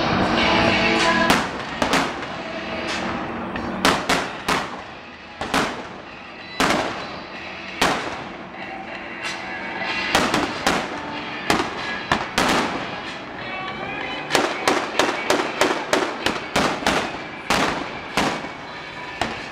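Pirate ship's cannons firing blank salutes: a long series of loud, sharp blasts, each with a short echoing tail. Some come singly and some in quick runs, with a rapid string of shots in the last few seconds.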